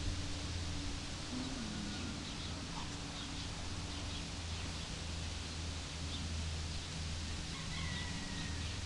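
Outdoor background: a steady low hum with faint, scattered bird chirps, and a short thin whistle near the end.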